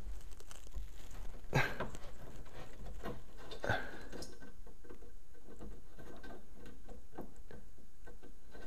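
Screwdriver turning Phillips screws out of a steel car trunk lid, with small scratchy ticks and scraping and a couple of sharper clicks in the first half.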